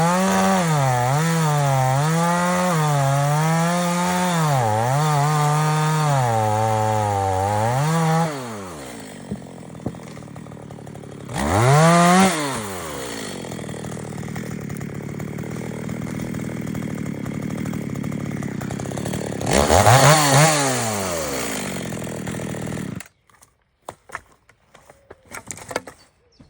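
Echo CS-3600 two-stroke chainsaw cutting wood under load, its engine note wavering up and down, then dropping to idle about eight seconds in. It is revved twice in short blips and then shut off, stopping abruptly near the end, followed by a few faint clicks.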